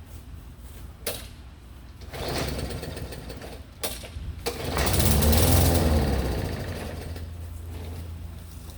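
Lawn mower engine being cranked over: a couple of sharp clicks, then a loud surge about five seconds in that rises and falls in pitch over roughly two seconds and dies away without running on. A steady low hum lies underneath.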